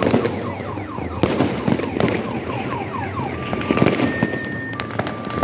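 Fireworks going off all around: sharp bangs and crackling bursts, the loudest about a second and two seconds in. Over them an electronic alarm sounds, first a quick run of falling chirps, then two steady tones alternating, high and low.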